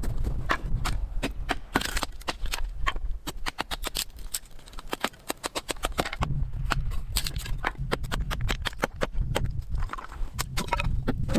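Irregular series of sharp knocks and clicks, several a second, over a low rumble.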